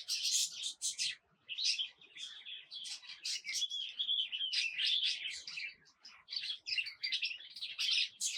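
Several small songbirds chirping and twittering in quick, overlapping high notes, with a longer warbling trill about three to five seconds in.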